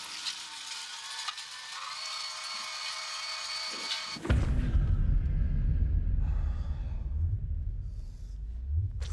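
Film sound effects: a hiss with steady high whining tones, cut off abruptly about four seconds in by a loud, low rumble.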